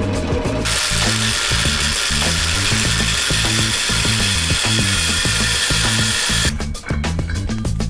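A power tool running steadily for about six seconds, starting just under a second in and stopping about six and a half seconds in, over background music with a repeating bass line.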